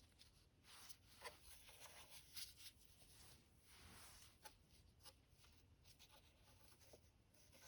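Near silence with a few faint, scattered light clicks and rubs from hands handling the opened Oreck XL9100 upright vacuum's belt and parts.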